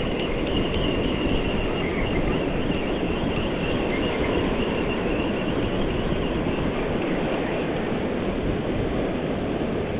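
Ocean surf and churning water rushing steadily, a dense, even noise with no breaks.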